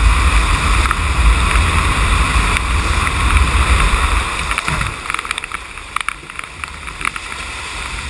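Rushing water of a FlowRider standing-wave machine: a steady hiss of spray over a low rumble, which eases about five seconds in, then scattered splashes and knocks as the rider comes down in the whitewater.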